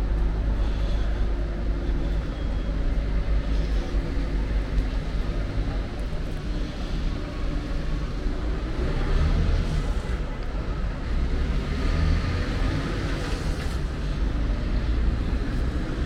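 Street traffic: vehicle engines running and passing over a steady low rumble, one vehicle rising in pitch as it speeds up about halfway through.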